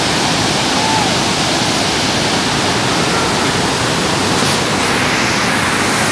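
Large waterfall in heavy flow, its white water pouring over stepped rock ledges: a loud, steady rush.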